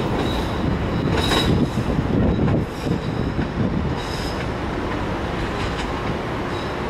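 A Bombardier 5000-series rapid-transit train pulls away over curved track and switches. Its wheels make a steady low rumble, with brief high wheel squeals coming and going, the strongest about a second in and another about four seconds in.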